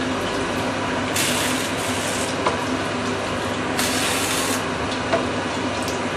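Chicken stock ladled into a hot stainless steel wok of stir-fried carrot and shiitake, the liquid splashing and hissing over a steady simmer. Two louder pours of about a second each, the second about four seconds in.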